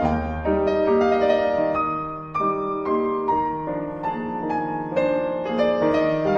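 Background piano music: a gentle melody of notes changing about every half second.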